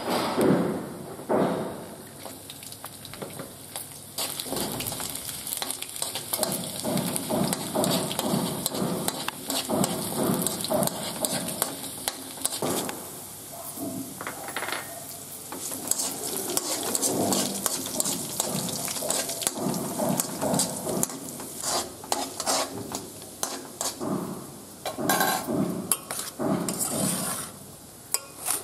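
Oil sizzling in a kadai as a tempering of dried red chillies, garlic, cumin seeds and black gram fries in it, with a spatula scraping and clinking against the pan now and then.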